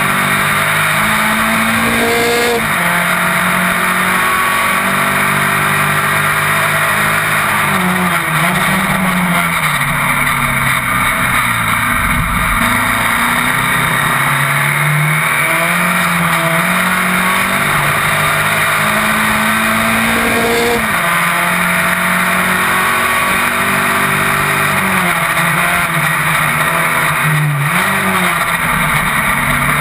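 Open-wheel single-seater race car's engine at full racing load, recorded from the car itself. Its pitch climbs and falls several times as the driver shifts gears and lifts for corners.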